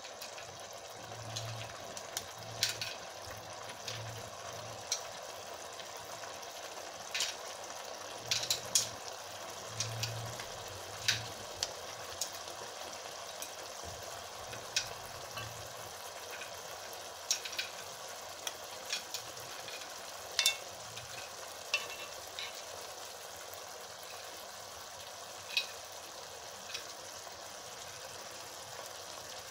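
Potato, rice and broth simmering in a pan with a steady bubbling hiss, while mussel shells are set down on top, clicking sharply against each other and the pan every second or two.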